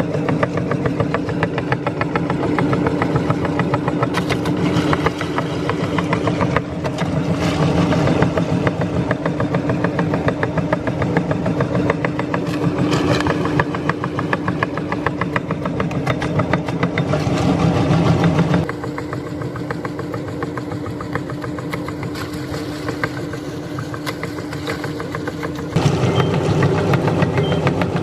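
Electric meat grinder running steadily, its motor hum underlying a fast mechanical rattle as it grinds bananas. About two-thirds of the way through the sound drops to a lighter, duller run for several seconds, then returns to full strength.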